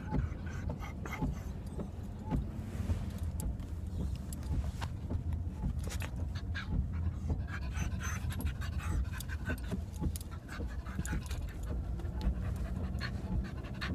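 A Shetland sheepdog panting in the back of a moving car, over the car's steady low road rumble, with scattered short clicks and rustles as she shifts around on the seat.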